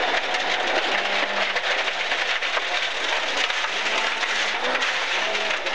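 Rally car at speed on a gravel stage, heard from inside the cabin: the engine runs under a steady, dense crackle of loose gravel hitting the underbody and wheel arches.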